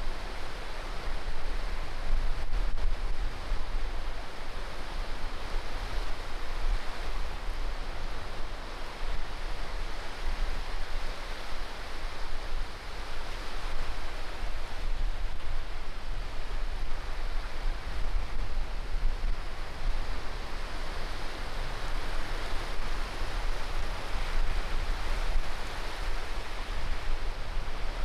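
Small sea waves breaking and washing up on a sandy beach: a steady surf noise that swells and eases every few seconds.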